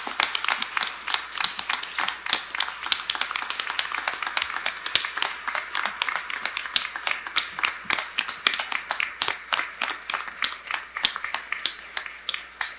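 Applause from a small gathering: many people clapping, with individual claps standing out distinctly. The clapping thins a little near the end.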